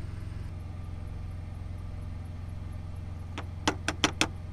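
A steady low engine hum of the idling truck underneath. About three seconds in, a quick run of sharp clicks and taps as a spice jar and metal spoon knock against a small bowl while seasoning is measured into it.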